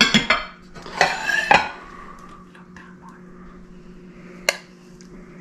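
Ceramic tableware clinking and knocking: a sauce jug set down on its saucer at the start, a cluster of ringing clinks about a second in, and a single sharp clink near the end.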